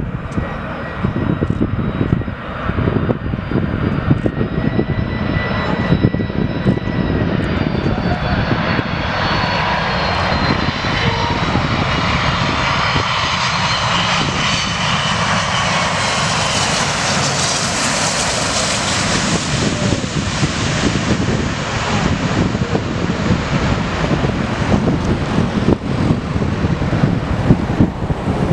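Boeing 747 jet engines passing close by: a continuous deep rumble with a layered whine that slowly falls in pitch, swelling to its loudest about two-thirds of the way through and then easing into a steady roar.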